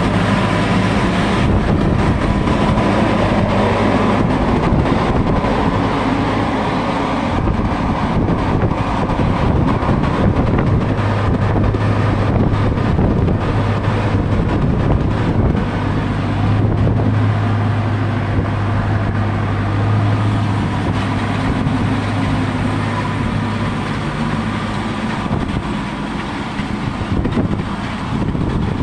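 Massey Ferguson 6470 tractor's diesel engine running steadily as it pulls a seed drill, growing a little fainter near the end. Strong wind buffets the microphone over it.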